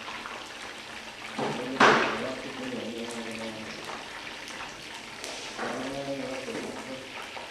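Kitchen sounds with voices talking in the background. About two seconds in, a short, loud rush of hissing noise; a few light clicks follow.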